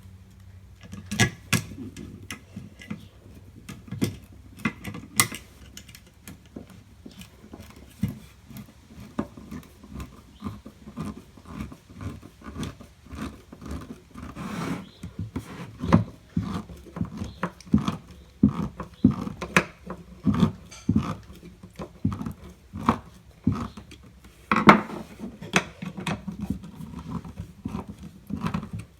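Irregular clicks, scrapes and knocks of a screw being turned down through a wooden block onto a loudspeaker's bent metal frame, tightened to pull the frame back into shape, with tools and parts handled in between. A louder cluster of knocks comes near the end.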